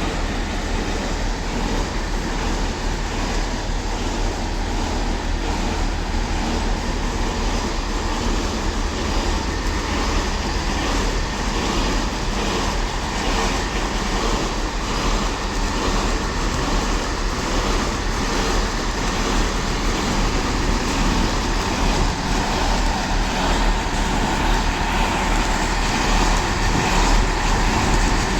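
Networker 'Turbo' diesel multiple unit running with a steady, quite horrible noise, a sign that something is wrong with it. It grows a little louder near the end.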